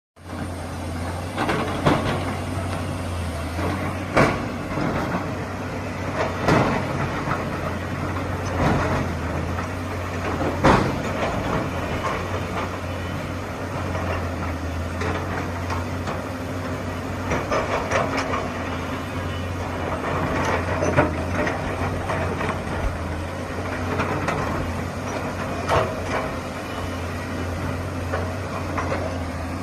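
Excavator's diesel engine running steadily, with sharp knocks every few seconds.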